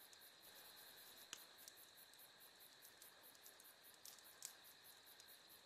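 Faint insect chorus, crickets chirping in a rapid even high pulse of about eight a second over a steady high hum, with a couple of sharp clicks.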